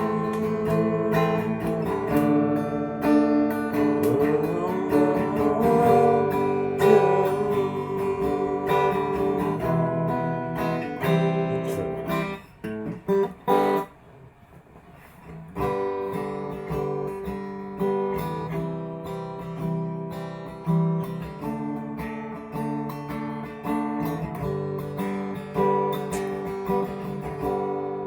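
Acoustic guitar strumming chords in an instrumental break, with no singing. The playing drops away for about two seconds around halfway, then the strumming picks up again.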